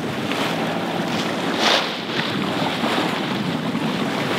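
Wind buffeting the microphone and sea water rushing past the hull of a sailboat under way, with a steady low hum underneath from its auxiliary engine running. The rush surges briefly louder about a second and a half in.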